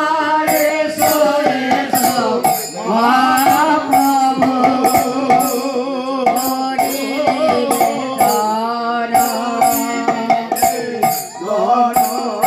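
Bengali devotional kirtan: voices singing long, drawn-out melodic lines over a steady beat of hand percussion.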